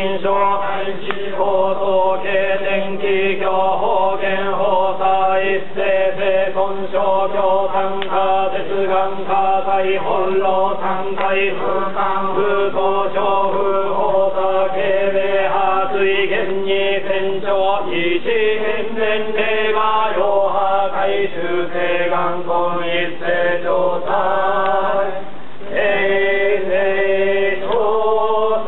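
Many voices chanting a Buddhist sutra together in unison: the yamabushi priests' chant of the saitō goma fire rite, a steady drone of held notes that shift slowly, with a brief break about 25 seconds in.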